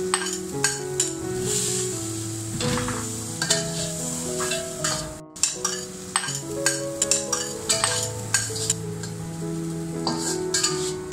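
Metal spatula scraping and clacking against a stainless steel wok as chopped bitter gourd with salted egg is stir-fried, the food sizzling, under light piano music. The sound drops out for an instant about five seconds in.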